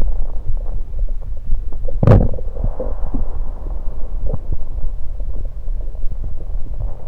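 Stomach gurgling recorded close against the belly, with the stomach full of carbonated soda. A steady low rumble carries scattered small gurgles and one sharper, louder pop about two seconds in.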